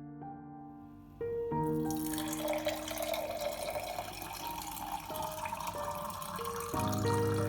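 Water running from a tap into a sink, starting about one and a half seconds in, over soft piano music.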